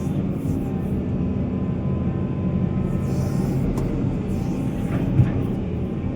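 Heavy diesel mining machinery running steadily with a low rumble, and one short sharp knock about five seconds in.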